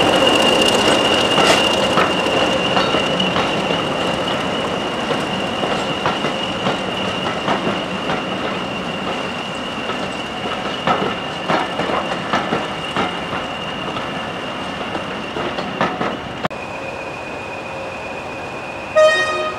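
Train of coaches hauled by Class 20 diesel locomotives rolling slowly past, with a steady high-pitched whine over the noise of the train and a scatter of wheel clicks over rail joints and pointwork. Near the end there is a brief, loud pitched toot.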